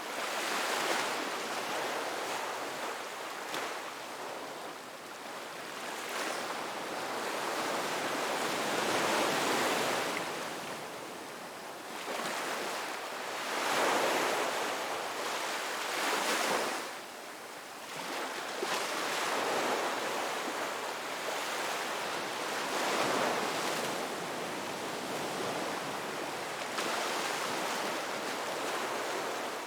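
Ocean waves breaking on a beach, a continuous surf wash that swells and ebbs as each wave comes in every few seconds.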